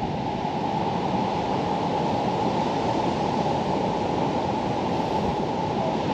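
Steady rushing noise with no distinct events, heaviest in the low and middle range.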